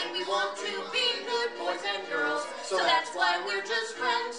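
A man and a woman singing a song live into microphones, with held notes.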